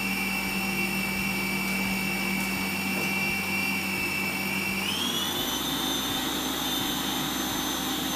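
Electric food processor running steadily, its motor whining as it works rice flour and lean minced lamb into kubba dough. About five seconds in, the whine steps up in pitch as the motor speeds up, then holds there.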